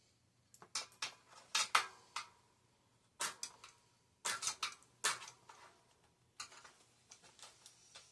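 Irregular clicking and light clattering from hands working a bicycle wheel's tire and rim liner on the rim, in bunches of quick clicks with short pauses between.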